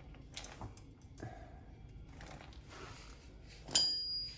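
Faint clicks and rustles of metal parts being handled, then near the end a small metal tool strikes a hard surface with a sharp clank and a bright ringing that fades over about half a second.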